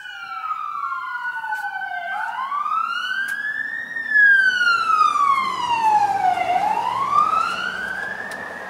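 Emergency vehicle siren wailing, its pitch rising and falling in slow sweeps of about two seconds each way, louder from about four seconds in.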